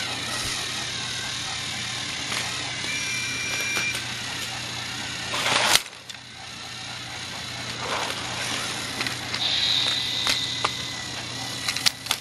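Battery-powered TrackMaster toy train motor whirring steadily on plastic track, with a short loud scrape about halfway through.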